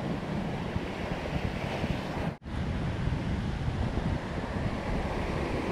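Sea surf washing and foaming over low shoreline rocks, with wind buffeting the microphone. The sound cuts out for a moment about two seconds in.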